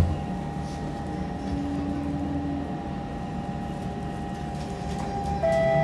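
Siemens C651 train car standing with its doors shut, a steady low hum of its on-board equipment. About five and a half seconds in, the GTO traction inverter cuts in with a cluster of steady whining tones and a faint rising note as the train starts to pull away.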